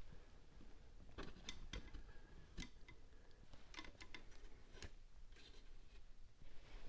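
Faint, irregular clicks and light taps, a dozen or so, from small wooden chair parts and hand tools being handled while the chair's mortise holes are cleaned out.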